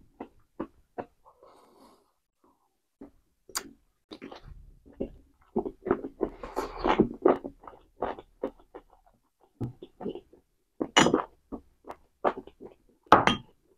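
Close-miked mouth sounds of eating curried chicken and rice: wet chewing and lip smacks in quick, irregular bursts, densest about halfway through.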